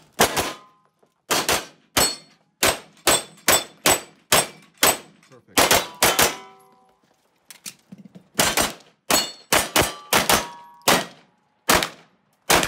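Rapid fire from a Taran Tactical Glock 17L Combat Master 9mm pistol: around thirty shots, many in fast pairs, with steel targets ringing after hits. There is a pause of about two seconds midway.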